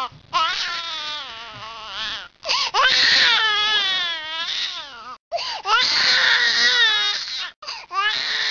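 Newborn baby crying: three long wailing cries of about two seconds each, with short catches of breath between them, and a fourth cry starting near the end.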